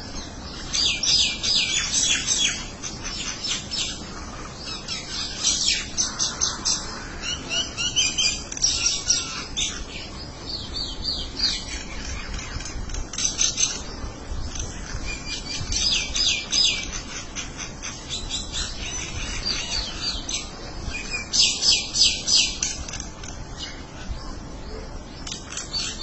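A small group of common mynas chattering: bursts of rapid, repeated high calls every few seconds, with quieter gaps between.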